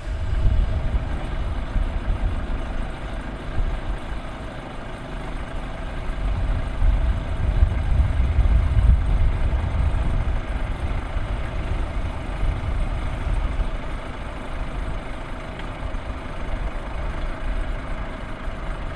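Peugeot 307 hatchback idling: a low engine rumble that grows louder around the middle and eases off again.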